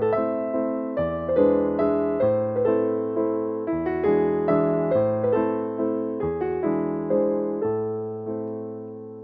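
Background piano music: notes struck one after another over a low bass note that changes about every second and a half.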